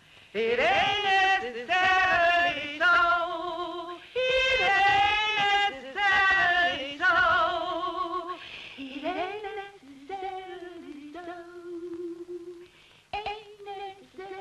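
A female voice singing long held notes with strong vibrato, the pitch stepping up and down between notes. It is loud at first and softer from about nine seconds in, with a sharp click a little before the end.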